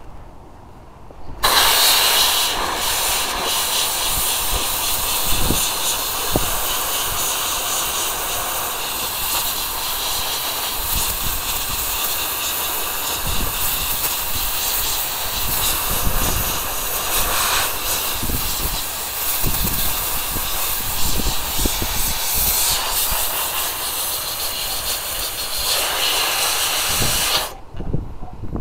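Central Machinery 20-lb pressurized abrasive blaster firing compressed air and baking soda from its nozzle onto rusty metal: a loud, steady hiss that starts suddenly about a second and a half in and cuts off abruptly near the end.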